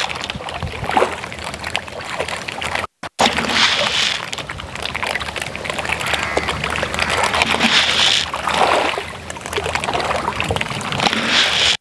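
Water splashing and sloshing at a floating net fish cage, a busy patter of small splashes that swells in surges. The sound cuts out briefly about three seconds in.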